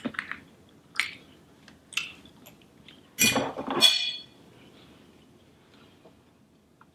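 Metal fork clinking and scraping against a foil pot-pie tin and a plate: a few light clicks, then a louder clatter about three seconds in as the fork is set down.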